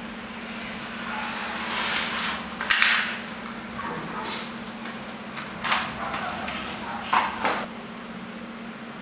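A blade scraping through a thin white plastic sheet along an aluminium straightedge, with several short, sharp clatters of the metal bar and sheet being handled, loudest about three seconds in and again near the end. A steady low hum runs underneath.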